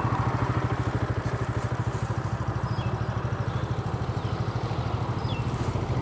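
Bajaj Pulsar NS motorcycle engine running at low revs with an even, rapid beat as the bike moves slowly.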